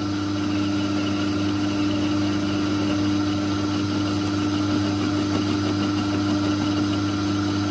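Myford metal-turning lathe running, its electric motor and spinning chuck making a steady, even hum with a clear mid-pitched tone.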